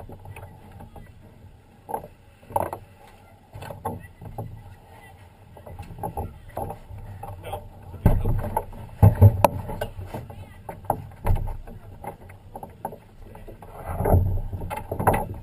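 Irregular knocks and thumps from a small Sabot sailing dinghy moored at a dock, picked up by a camera fixed to the boat. From about eight seconds in there is louder low rumbling and thumping, and more bumps come near the end as a cat is lifted aboard.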